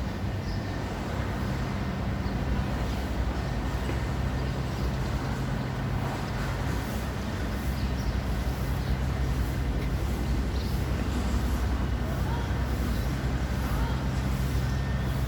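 Steady low engine rumble of road traffic, with an even background of street noise.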